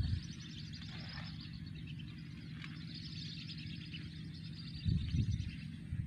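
Many short, high whistling calls of wandering whistling ducks (belibis kembang) chattering on and on, over a low steady rumble, with a brief louder low rumble about five seconds in.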